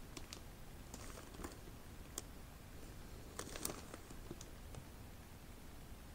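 Faint crinkling of a clear plastic bag around a cardboard box as it is handled, with scattered light clicks, a small cluster about three and a half seconds in the loudest.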